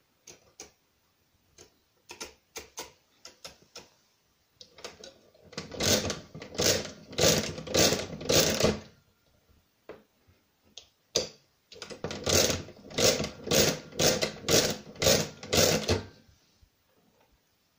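Brunsviga pinwheel mechanical calculator working a multiplication. First come a few light clicks as the setting levers are moved. Then come two runs of crank turns, about five and then about six, each turn a clattering mechanical stroke, with a single click between the runs.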